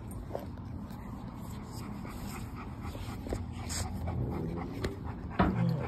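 A yellow Labrador retriever panting steadily, with a louder sound starting near the end.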